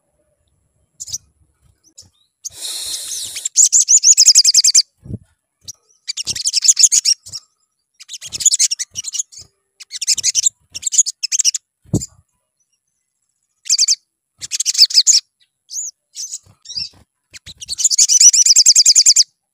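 Male olive-backed sunbird singing: bursts of rapid, high trilling, each up to a second and a half long, repeated with short gaps. Two soft low thuds come in between, about a third of the way in and past the middle.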